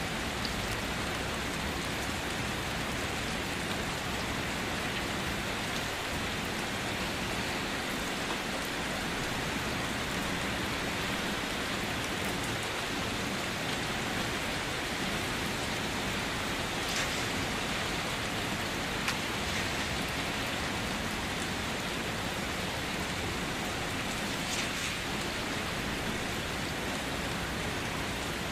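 Steady rain falling, an even continuous hiss, with a few brief ticks in the second half.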